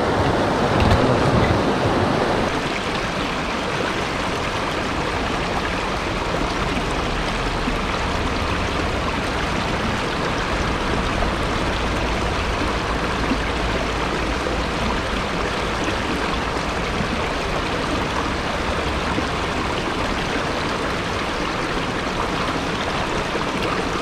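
Shallow mountain stream running over and between rocks, a steady rush of water, a little louder in the first couple of seconds.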